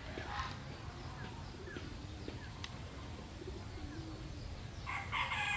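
Birds chirping outdoors in short scattered calls over a steady low background rumble, with a louder burst of calls near the end.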